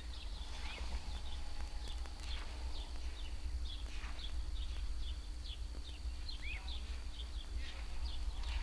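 Outdoor ambience of small birds chirping: many short, high chirps scattered all through, over a steady high whine and a low rumble.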